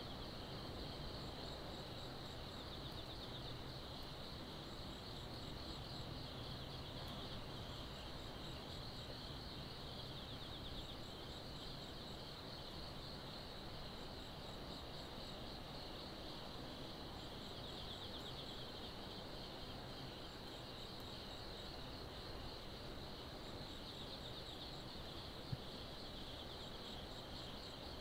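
Faint night insects, crickets, trilling steadily, with a second, higher insect chirping in short pulsed groups every few seconds over a low, even background hum. A single short tick about 25 seconds in.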